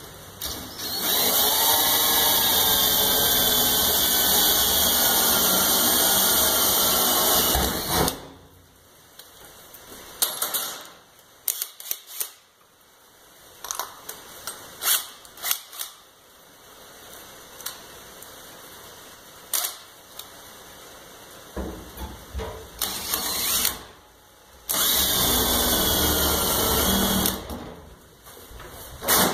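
Cordless drill boring a pilot hole through the steel floor of a pickup bed, the motor whining for about seven seconds and dropping slightly in pitch under load. Then come clicks and knocks of tools being handled, and a second short run of drilling near the end.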